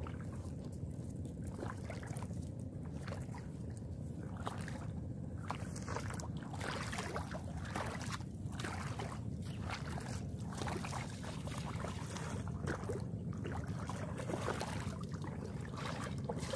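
Footsteps splashing and squelching through shallow seawater and wet sand, repeated short splashes that come more often after the first few seconds, over a steady low rumble.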